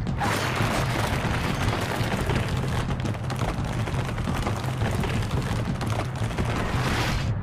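Cartoon sound effect of giant vines bursting out of the ground and spreading: a dense rumbling, crackling noise that starts suddenly and cuts off near the end, over a steady low hum.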